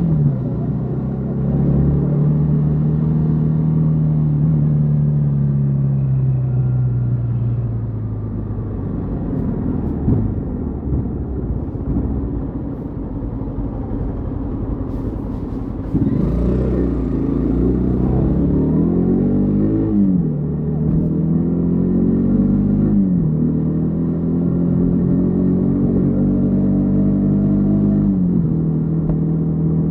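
Yamaha XTZ 150 Crosser S single-cylinder engine, heard from the rider's seat. For the first eight seconds or so the revs fall away as the bike slows, and the engine runs low until about halfway. Then it pulls away, the revs climbing and dropping through about three upshifts, and it holds a steady cruise before easing off near the end.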